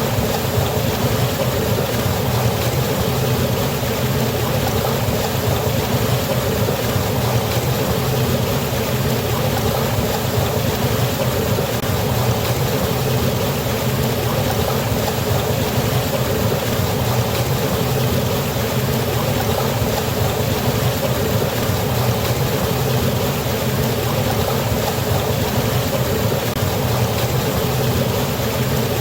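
Waterfall, falling water rushing steadily without a break, with a strong low rumble under the hiss.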